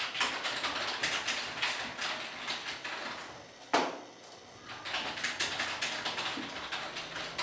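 A rapid, irregular series of sharp mechanical clicks, with one loud single click a little past halfway and fewer clicks for about a second after it.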